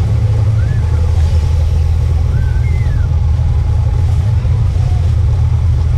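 Fishing boat's engine running steadily, a loud, even low hum.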